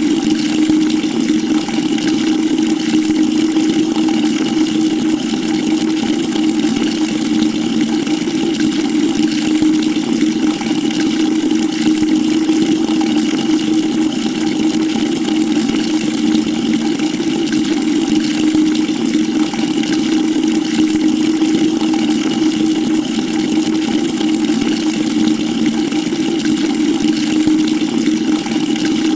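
Water pouring steadily into a bucket: a continuous rush of water with a steady low hum underneath.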